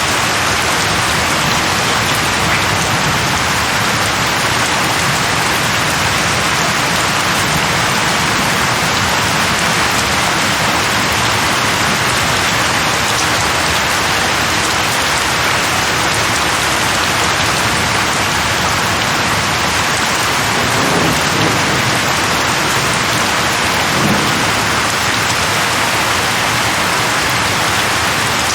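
Steady, even rain. Two short, low rumbles of distant thunder come about two-thirds of the way through and again a few seconds later.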